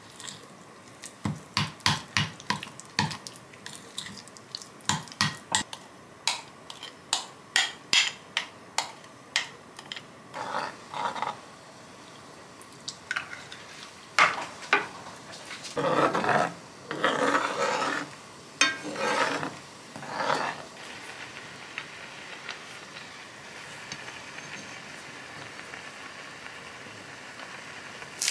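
A metal spoon rapidly clinking and scraping against a small glass bowl while stirring a thick chili-paste sauce, a few clicks a second, for about the first ten seconds. Later a pan of spicy broth simmers with a soft steady sizzle, and a single sharp snip of kitchen scissors cutting green onion comes right at the end.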